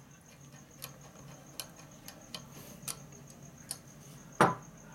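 Light metallic clicks and taps of a motorcycle brake caliper and its brake-line fitting being handled on a steel bench, with one louder metal clank near the end.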